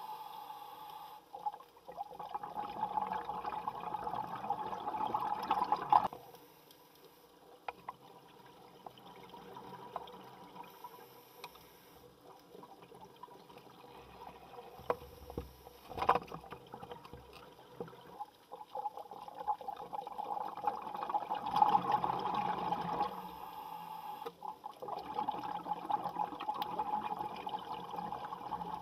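Underwater sound of scuba divers breathing: long stretches of bubbling from exhaled air, with a quieter lull in the middle and one sharp click past the middle.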